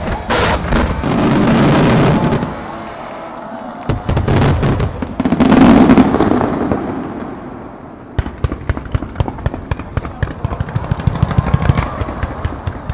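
Fireworks bursting: heavy booms and rumbling in the first half, the loudest about halfway through, then from about two-thirds of the way in a fast crackle of sharp pops that grows denser toward the end.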